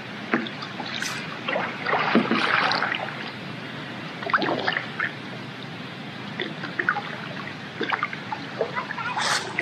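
Kayak paddle strokes: water trickling and dripping off the paddle blades with small splashes, swelling with each stroke several times.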